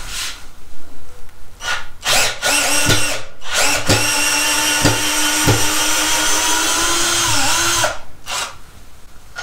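SnapFresh 20V cordless drill running in reverse to back a wood screw out of a timber beam: a few short trigger blips, then a steady motor whine for about five seconds with a few sharp clicks, dipping in pitch just before it stops.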